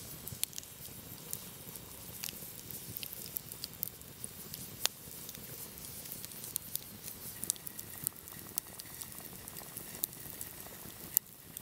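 Wood campfire crackling, with many irregular sharp pops and snaps over a low steady hiss of burning wood.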